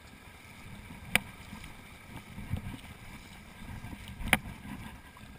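Rushing water of a shallow mountain torrent, with two sharp clicks, one about a second in and one about four seconds in.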